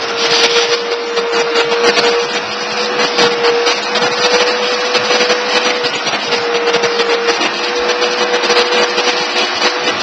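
Vacuum cleaner running steadily: a constant motor whine over the loud rush of suction air, with a rough rubbing texture that comes and goes as the nozzle is drawn over the cats' fur.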